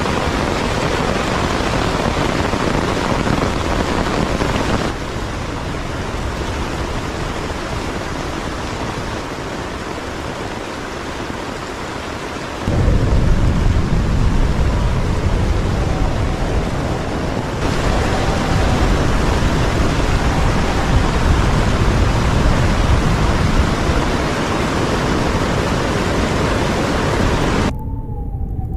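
Heavy thunderstorm: rain pounding on a tarp shelter and wind gusting. About a third of the way in, a deep rumble comes in and stays loud.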